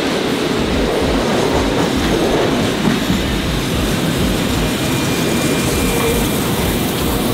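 A vintage Tait electric suburban train running along the line, heard from aboard: a steady rumble and rattle of wheels on the rails, with one louder knock about three seconds in.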